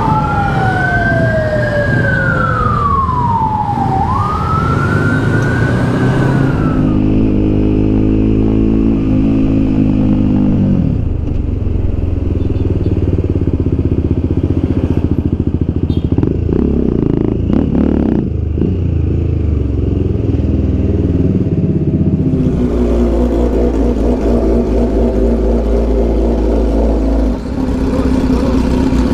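A siren wailing up and down in pitch for the first six seconds or so. Then a BMW G310 GS single-cylinder motorcycle engine revs up through the gears and runs on with road noise, with another rise in engine pitch near the end.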